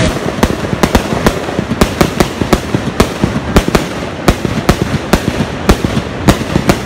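Aerial fireworks going off: a rapid, irregular string of sharp pops and bangs, about three or four a second, over a steady hiss.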